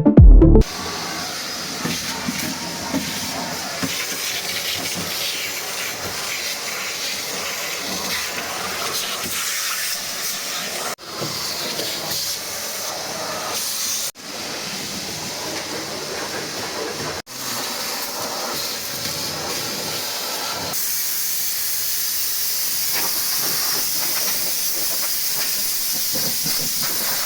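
Steady hissing spray, dropping out briefly three times and turning brighter and steadier about two-thirds of the way through.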